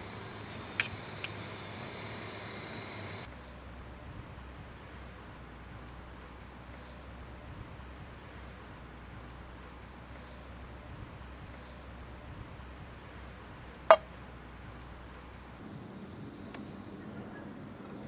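Steady, high-pitched insect chorus, with one sharp tap standing out about 14 seconds in and two fainter ticks near the start.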